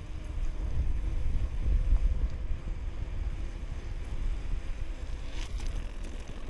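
Wind buffeting the microphone while cycling: an uneven low rumble, with a short hiss about five seconds in.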